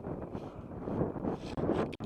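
Wind buffeting the microphone, a rough gusting rumble that grows louder about a second in.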